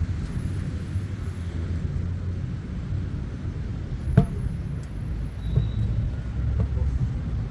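A steady low rumble, with one sharp slap about four seconds in as goalkeeper gloves take a large heavy training ball, and a few fainter taps after it.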